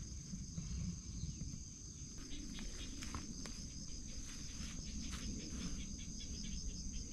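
A steady high chorus of insects trilling over a low rumble, with scattered light clicks and rustles through the middle.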